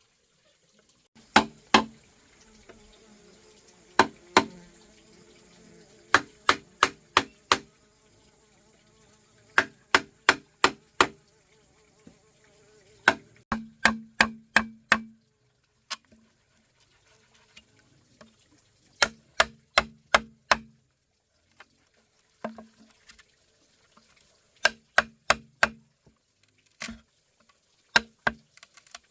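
Repeated sharp blows of a hand tool on wood, in quick runs of three to six strikes with short pauses between, each blow leaving a brief low ring.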